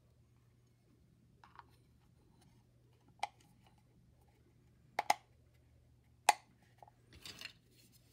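A few sharp, light clicks as a thin aluminium base plate is fitted against the wooden body of a homemade mouse: one about three seconds in, a quick pair about five seconds in and the loudest about six seconds in. A short scrape of handling follows near the end as the assembly is turned over.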